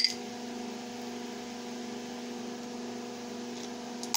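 Steady electrical hum, low and even, with no other sound.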